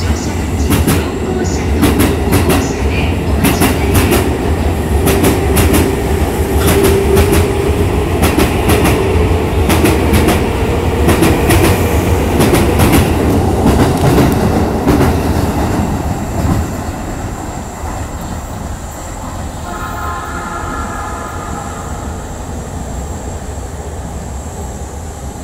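JR East 251 series Super View Odoriko electric train running through a station: a loud rumble with rapid clickety-clack of wheels over rail joints and a steady hum. The sound fades after about sixteen seconds as the last cars go by.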